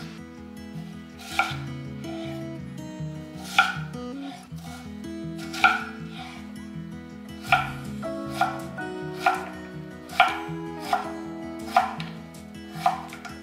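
Kitchen knife cutting through food and knocking on a wooden cutting board, about ten strokes, spaced a second or two apart at first and then coming quicker, over soft background music.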